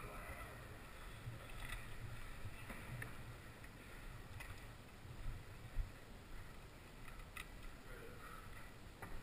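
Quiet movement of airsoft players' kit: a low rumble of handling on a helmet-mounted camera, with a handful of scattered soft clicks and knocks, the sharpest about two-thirds of the way through.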